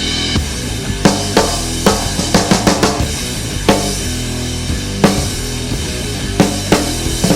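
Drum kit playing in a full band mix, featuring a custom 5.5 x 14 inch nine-ply snare drum with brass snare wires, over a steady low bass line. Sharp drum strokes hit at an uneven rhythm, with quick runs of strokes about two and a half seconds in and again near the end.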